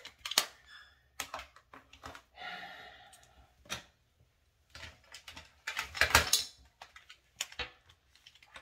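Light clicks and clatter of makeup containers and brushes being handled and set down on a counter, with a brief rustle about two and a half seconds in and a quick run of clicks about six seconds in.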